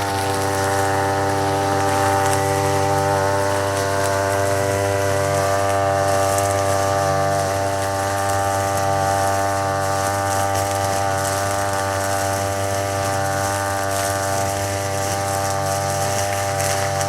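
Small-engine brush cutter spinning a 2.7 mm nylon trimmer line, held steady at high revs.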